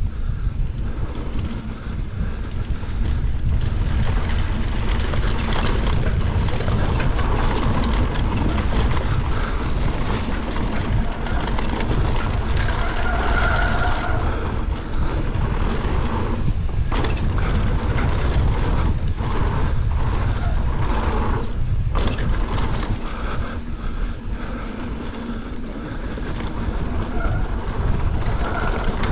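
Wind rushing over the microphone, with the rumble of a mountain bike's tyres on a dirt trail and the rattles and sharp knocks of the bike over rough ground at speed.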